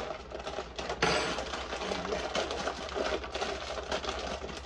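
Kitchen noise while cooking: a sharp clatter about a second in, over steady crackling and a low pulsing hum.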